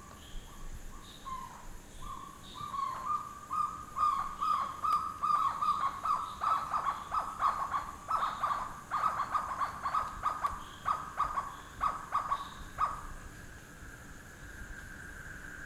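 Night ambience after rain: an animal gives a long run of rapid, repeated calls at one steady pitch. The calls build over the first few seconds and stop abruptly about 13 seconds in, over a steady high drone of insects.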